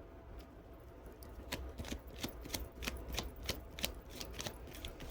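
Tarot deck being shuffled by hand: a quick run of light card clicks, about five a second, starting about a second in.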